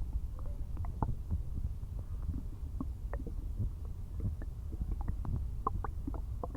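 Empty stomach rumbling and gurgling: a steady low rumble with many short gurgles and pops throughout, from a belly that has had no food all day.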